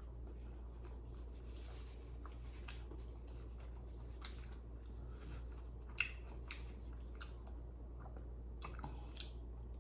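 Faint, close-miked chewing and wet mouth smacks of someone eating saucy seafood boil, with a sharper click about six seconds in.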